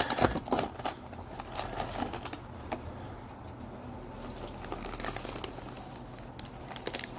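A cardboard cookie box being opened and a plastic cookie tray slid out of it: crinkling and crackling of cardboard and plastic, busiest in the first second and again near the end, quieter in between.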